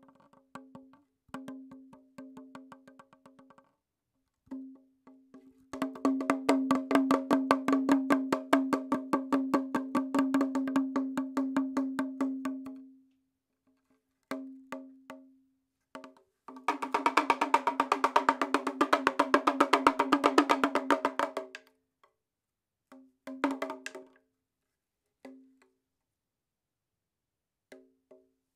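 Background music: fast, even clicking percussion over a held note, played in phrases of a few seconds with short breaks between them, loudest in two long stretches.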